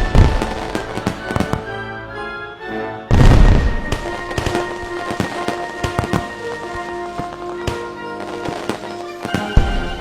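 Fireworks bursting in the sky: deep booms, the loudest about three seconds in and another near the end, with quicker crackling bangs in between. Music with long held notes plays underneath.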